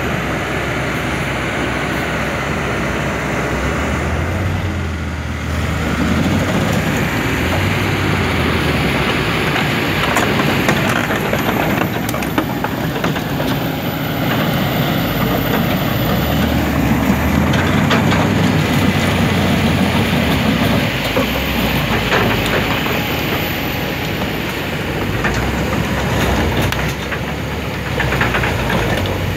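Kobelco SK200-10 excavator's diesel engine running continuously, its low note swelling and easing several times as the machine works.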